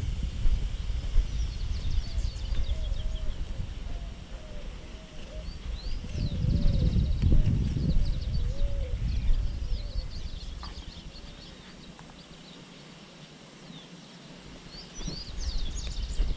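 Small birds chirping and twittering in quick rising and falling calls, with a lower call repeated several times a second through the first half. Under them runs a low rumble of wind and movement on the camera microphone, which drops away for a few seconds before the end.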